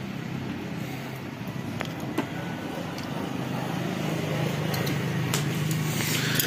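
A steady low mechanical hum, with a few faint clicks and rustles from hands handling wires and small LED light modules.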